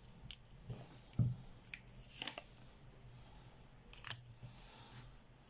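Tarot cards being handled: a few faint, crisp clicks and rustles scattered through the first half, and one more about four seconds in.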